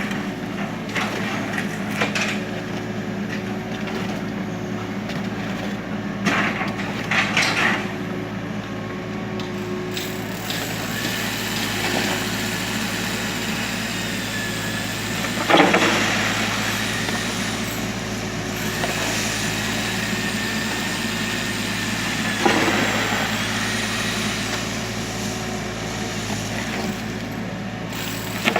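Kubota U35 mini excavator's diesel engine running steadily under work, with several louder, short noisy spells from the machine at work: around a quarter of the way through, about halfway, and again near three-quarters through.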